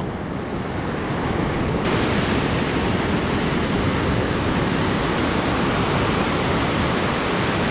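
Steady rush of ocean surf breaking on a sandy beach, growing fuller and brighter about two seconds in.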